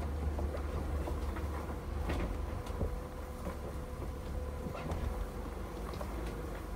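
Off-road vehicle driving down a rough dirt trail, heard from inside the cabin: a steady low engine rumble with a faint steady hum, and scattered knocks and rattles as the vehicle bounces over the ground.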